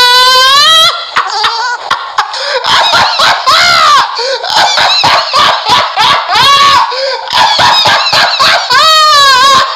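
A man laughing hard in high-pitched, squealing whoops that rise and fall in pitch: one long held squeal at the start, a run of short bursts of laughter, then another long squeal near the end.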